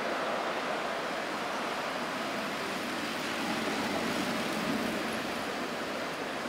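Track bicycles' tyres whirring on the wooden velodrome boards as a group of riders passes, a steady rushing noise that swells a little about four seconds in.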